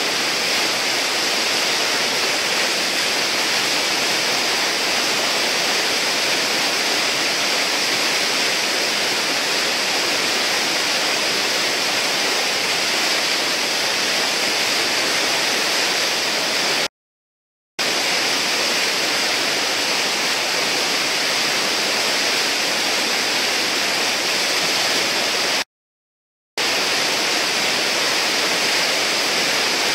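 Steady rushing roar of whitewater churning through a river hole. The sound cuts out completely twice for under a second, about halfway through and again later.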